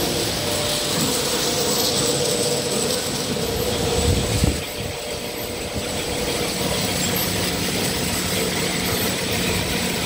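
Ampoule washing machine running: steady mechanical running noise with a constant hum and a thin high tone, and a brief low thump about four seconds in.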